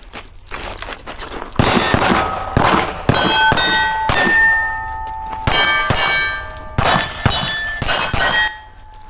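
A string of pistol shots on steel targets, starting about a second and a half in; hits set the steel plates ringing, each plate at its own pitch.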